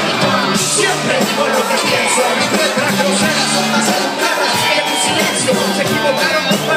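Live band playing loud through a PA, with a steady drum beat, bass, guitars and percussion, heard from within the audience.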